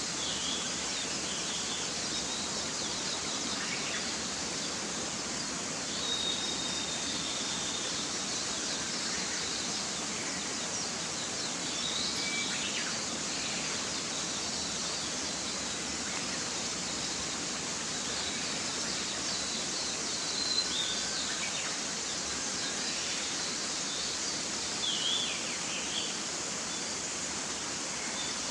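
Mountain stream rushing steadily, with scattered songbird chirps and whistles heard now and then over the water.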